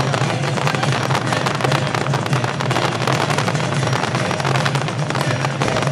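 Fireworks going off in a dense, continuous crackle of many rapid small pops, with a steady low hum underneath.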